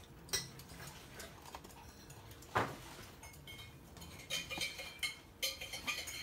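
Toy poodles' claws clicking and tapping on a hard wooden floor as the dogs move about. One louder knock comes about two and a half seconds in, and a quick run of clicks follows about four seconds in.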